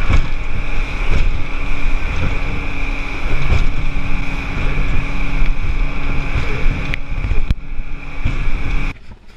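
Motorboat running under way on open ocean: a steady engine drone and whine with wind buffeting the microphone and a few sharp knocks. It drops off suddenly near the end.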